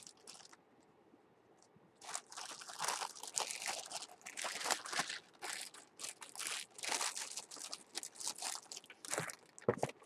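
Plastic packaging being handled and unwrapped by hand: a run of irregular crinkles and crackles that starts about two seconds in and goes on until near the end.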